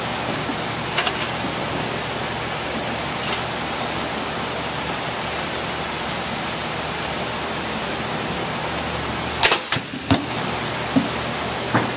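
Steady background hiss of air noise, then late on a short burst of sharp knocks as the drop tester's arms open and a corrugated cardboard wine-bottle carton falls onto the impact plate.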